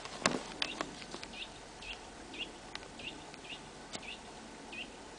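A small bird chirping over and over, short clipped calls two or three a second, with a few sharp clicks in the first second.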